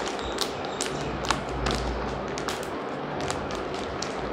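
Henna powder being shaken out of its packet into an iron kadhai: scattered light ticks and taps from the packet and hand, over a soft low rumble in the first few seconds.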